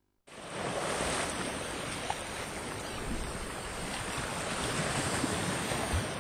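Steady rushing sound of sea and wind, like surf, starting abruptly just after the opening.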